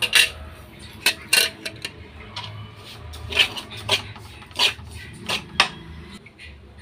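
A metal spoon scraping and knocking against a steel bowl while wheat flour and sugar are stirred together: about nine short, sharp strokes at an uneven pace.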